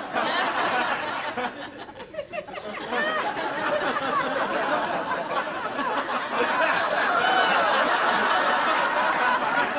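Studio audience laughing, many voices at once, swelling about three seconds in and holding loud.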